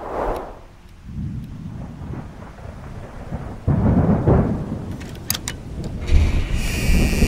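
Thunder rumbling in long rolls, possibly over rain, after a short whoosh at the start. The rumble swells about four seconds in and again near the end, where a high wavering hiss joins it.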